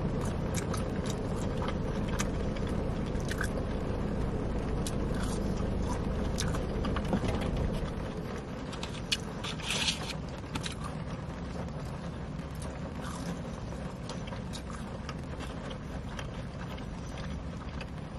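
Close-up chewing of a crispy breaded chicken nugget dipped in ranch, with many small wet mouth clicks, over a steady low rumble that eases about eight seconds in. A short scrape or rustle comes about ten seconds in.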